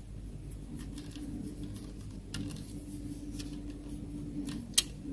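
Light plastic clicks and taps as the ribbon-cable holder is pressed onto a dot matrix printer's print-head carriage, with one sharp click near the end, over a steady low hum.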